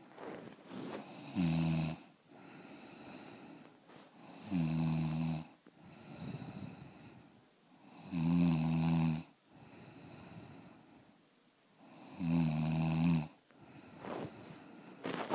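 Snoring: four loud, pitched snores on the in-breath, one about every three and a half to four seconds, each lasting about a second, with quieter breathing between them.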